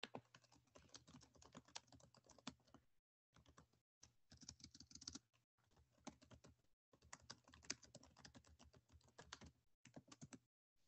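Faint typing on a computer keyboard: runs of quick key clicks with short breaks where the sound cuts out completely.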